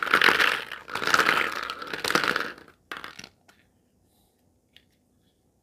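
Hollow plastic capsules clattering and rattling against each other and the bowl as a hand stirs through them for about two and a half seconds. Then come a few sharp clicks as one capsule is pulled open.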